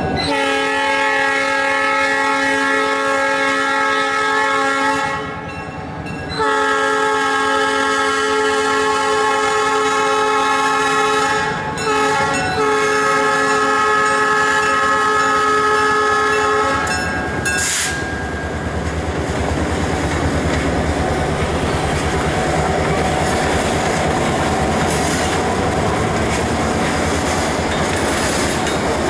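Diesel locomotive air horn sounding its chord for a road crossing as the train approaches: two long blasts, a short one, then a long one. From about 18 s on, freight cars roll past with steady wheel-on-rail noise and clickety-clack.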